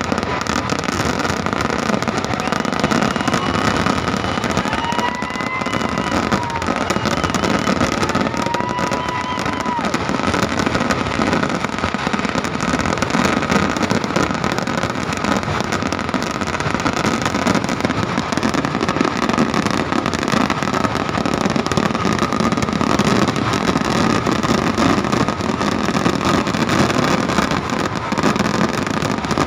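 Kerala temple-festival fireworks (vedikkettu) going off in a continuous barrage, so many charges in rapid succession that they merge into a steady rumble. Two high whistles sound about five and nine seconds in.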